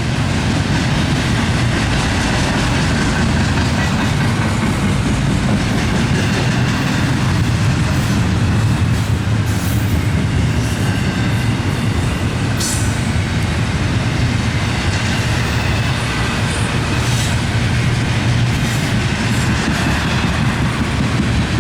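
Double-stack intermodal container cars of a long freight train rolling past at speed: a steady, loud rumble of wheels on rail, with a few sharp clicks about halfway through.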